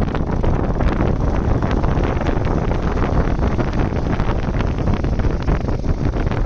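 Steady, loud wind buffeting on the microphone of a motorcycle riding at road speed, with the ride's vehicle noise blended underneath.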